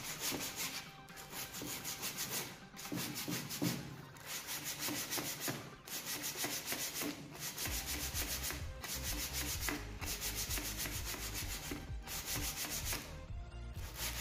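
80-grit sandpaper on a hand block rubbed rapidly back and forth along the sawn edge of a white laminated plywood board, smoothing out the chipping left by the saw. The strokes come in quick runs broken by brief pauses every second or two.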